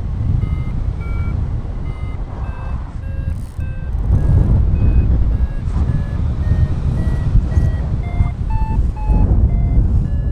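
Paraglider variometer beeping about twice a second, its pitch wandering up and down, the vario's signal that the wing is climbing. Loud wind rush on the microphone runs underneath.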